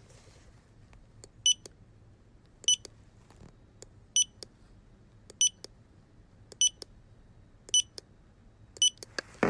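Fingerprint-scanner sound effect: seven short, high electronic beeps a little over a second apart, each with a click, over a faint low hum. A brief louder noise comes at the very end.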